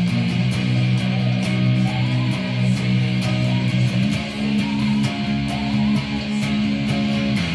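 Band music with no vocals: strummed guitar over a sustained bass line, an instrumental stretch of a worship song, with the chord changing about four seconds in.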